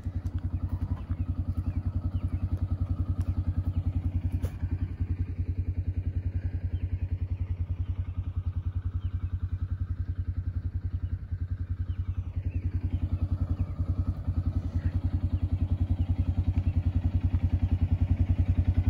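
Polaris Ranger 570 UTV's single-cylinder engine idling with a steady, even pulsing beat.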